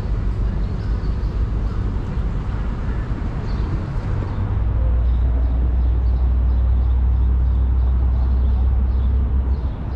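Steady low rumble of traffic on the elevated FDR Drive highway. It swells louder about halfway through and eases again near the end.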